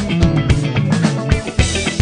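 Instrumental background music with a steady drum beat and a bass line stepping downward.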